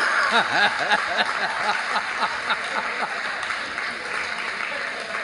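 A hall audience laughing and clapping, with a man laughing in short repeated pulses close to the microphone for the first few seconds; the laughter and clapping die down gradually.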